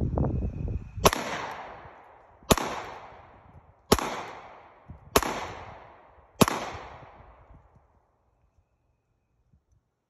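Five handgun shots fired at a steady pace, about one every 1.3 seconds, each sharp crack followed by an echo fading over about a second. Wind buffets the microphone before the first shot.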